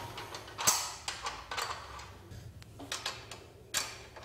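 Aluminium solar-panel mounting rails and their fittings being handled on a tile floor: an irregular run of short metallic knocks, clinks and scrapes, the loudest about two-thirds of a second in and another near the end.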